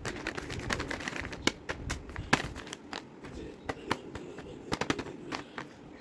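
Plastic blind-bag wrapper crinkling and crackling as it is handled and torn open, in quick irregular crackles.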